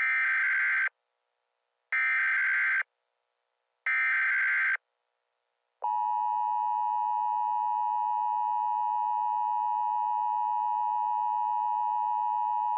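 Emergency Alert System tones: three one-second bursts of the SAME digital header, about two seconds apart. Then, about six seconds in, the steady two-tone EAS attention signal begins and holds.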